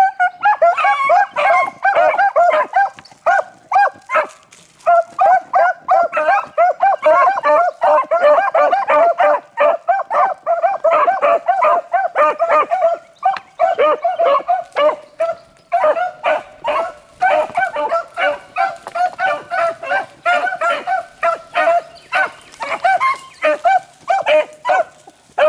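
A pack of beagles in full cry, several hounds baying and chopping over one another without a break as they run a rabbit's scent track.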